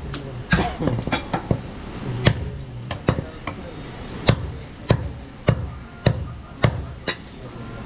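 Heavy butcher's cleaver chopping goat meat into chunks on a wooden chopping block: a steady run of sharp chops, a little under two a second, each a solid knock of the blade through meat into the wood.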